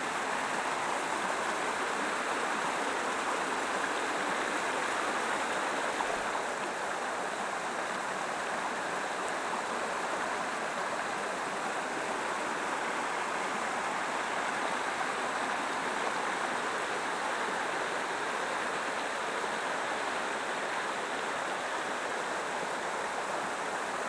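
Small waterfall and shallow forest stream, water cascading and splashing over rocks in a steady rush.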